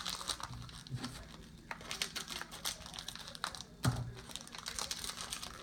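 Plastic toy packaging crinkling and small plastic parts clicking as they are handled, with one sharper knock about four seconds in.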